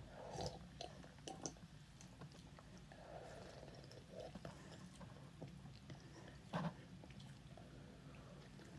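Faint swallowing and mouth noises of someone gulping a carbonated drink, with small clicks throughout and a brief thump about six and a half seconds in.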